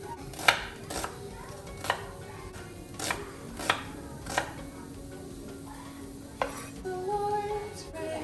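Knife chopping on a cutting board: about seven sharp, irregularly spaced knocks. Soft background music underneath, with a sung melody coming in near the end.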